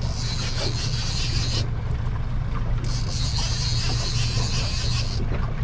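Suzuki 140 four-stroke outboard idling as a steady low hum, under wind and water noise. A high hiss cuts in and out in three stretches.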